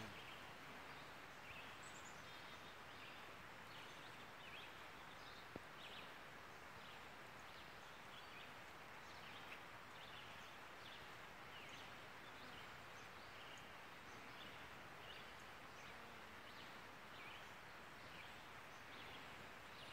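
Near silence: faint outdoor ambience, a steady hiss with faint short high chirps scattered throughout.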